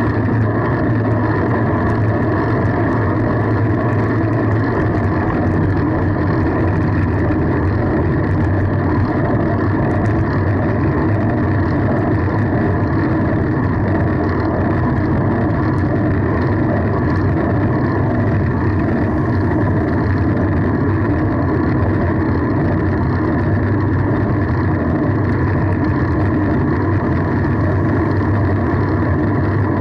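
Steady rushing rumble of wind and road on the microphone of a camera riding along on a moving fixed-gear bicycle.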